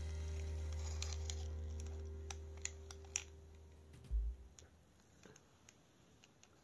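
Light plastic clicks and taps from a small plastic toy car being handled and pushed on a hard floor, with a soft thump about four seconds in. A low hum fades out under it over the first four seconds.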